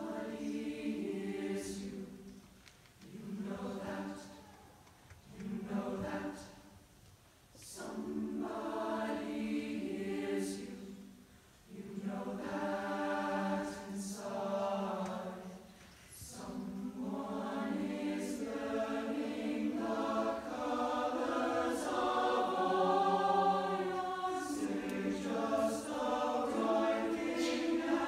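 Chamber choir singing in short phrases broken by brief pauses, then, from about halfway through, one unbroken passage that grows a little louder.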